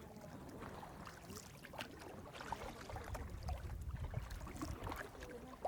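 Water splashing and lapping around a kayak under way, with scattered small splashes and a low rumble that grows about halfway through.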